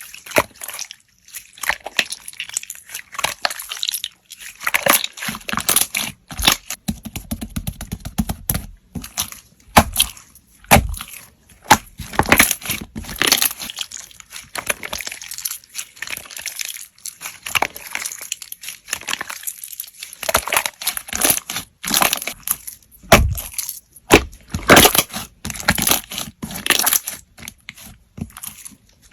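Slime being squeezed, poked and stretched by hand: irregular wet clicks, crackles and squelching pops, some louder and deeper than others.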